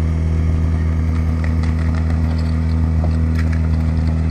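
Portable fire pump's engine running steadily at high speed, a loud, even drone during a firefighting-sport hose attack.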